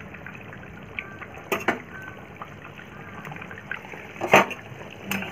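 Thin egg-and-potato curry simmering and bubbling in a pan, with a few sharp knocks of the spatula against the pan, the loudest about four seconds in.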